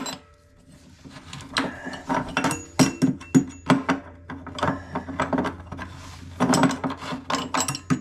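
Element wrench on a water heater's threaded heating element being spun by hand with a steel rod through it, unscrewing the loosened element counterclockwise: a run of irregular metallic clicks and scrapes.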